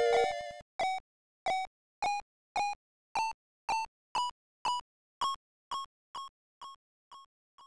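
A music cue ends about half a second in. Then comes a run of short electronic beeps, about two a second, that rise in pitch step by step, then hold one pitch and fade away.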